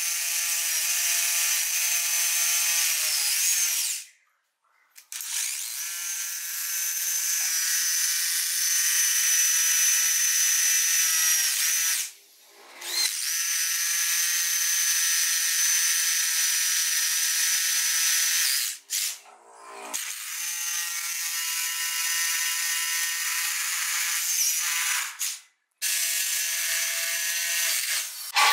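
Corded rotary hammer drill boring into a concrete stair step, running with a steady high whine in long runs of several seconds, stopping briefly four times between holes.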